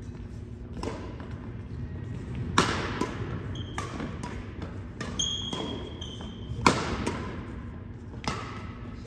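Badminton rally: rackets strike the shuttlecock in a string of sharp smacks, roughly one a second, that echo in a large hall. Sneakers squeak briefly on the hardwood court in between.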